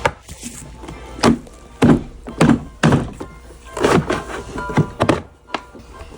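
A series of irregular thuds and knocks, about nine in six seconds, with music playing underneath.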